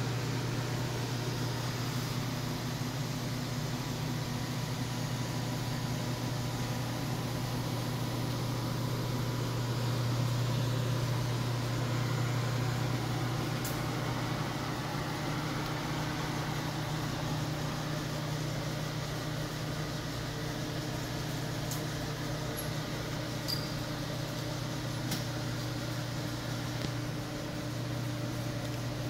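Lincoln 1132 conveyor pizza oven running: a steady low hum from its blower fans and conveyor motor, with a few faint ticks.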